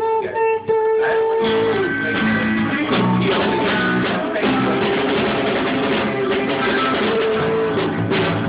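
A rock band rehearsing, with guitars to the fore. It opens on a held note, and the full band comes in about a second in and plays on steadily.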